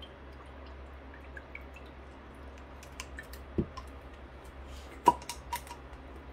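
Water dripping faintly while an HP 950-series printhead's ink chamber is flushed through with water, with a few sharper clicks of handling, the loudest about five seconds in.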